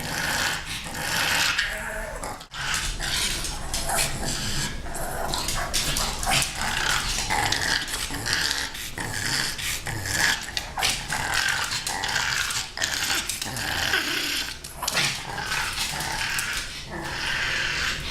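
A pug making a near-continuous run of noisy, breathy vocal noises, one after another with short breaks.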